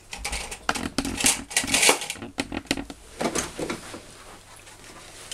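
Light clicks and clatter of plastic and metal parts on a knitting machine's needle bed being worked by hand, dense for about three seconds, then fading to a few soft knocks.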